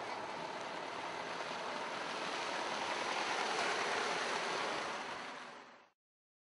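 A small SUV driving slowly past close by on a dirt road: a steady hiss of tyre and engine noise that swells as it nears, then fades out to silence near the end.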